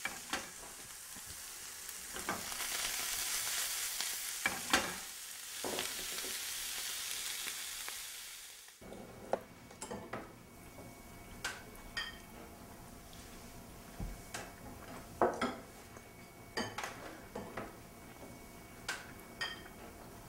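Chopped rabbit meat sizzling in a cast-iron skillet on a gas stove, with a spatula knocking and scraping in the pan as it is stirred. The frying cuts off suddenly about nine seconds in, and then come scattered clinks of spoons against ceramic bowls.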